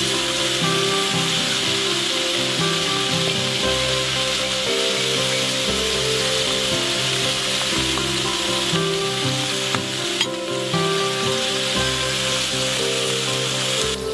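Cherry tomatoes and chopped bell peppers sizzling in hot oil in a frying pan: a loud, steady hiss that dips briefly about ten seconds in, over background music.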